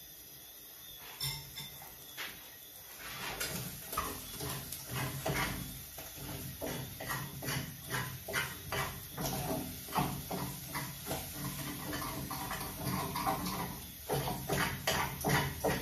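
A metal utensil clinking and scraping against a small metal pot as eggs are stirred, in quick irregular strokes that begin a few seconds in.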